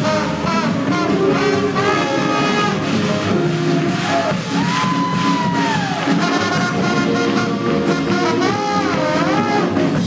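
Small swing band playing hot jazz live: trombone and saxophone over archtop guitar, upright bass, piano and drums. About halfway through, a lead line rises into a long held note that then bends down.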